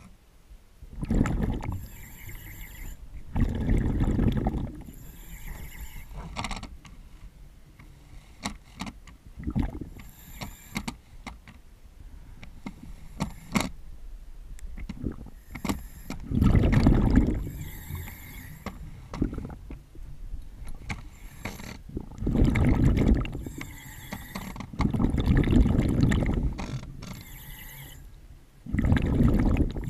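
A diver breathing underwater: every few seconds a surge of exhaled bubbles and breathing-gear hiss, each lasting a second or two. Between breaths come small sharp clicks and knocks as the metal extension rods are handled against the flange fittings.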